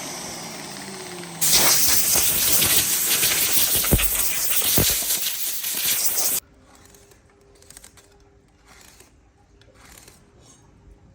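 Compressed air hissing in one loud, steady blast of about five seconds that starts and cuts off abruptly, as from an air blow gun or spray gun in a woodworking shop. Before it, a falling whine fades out, and after it only a faint steady hum remains.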